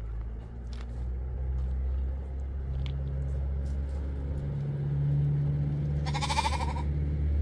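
An engine running with a low, steady rumble; about six seconds in, one short bleating animal call.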